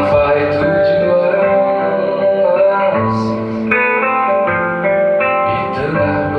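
Classical nylon-string acoustic guitar played live through a microphone: a steady run of plucked notes and chords.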